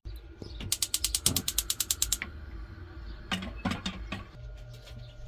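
Gas hob's electric spark igniter clicking rapidly, about ten clicks a second for a second and a half, as a burner is lit. A few metal clunks follow as a Turkish double teapot is set on the burner grate.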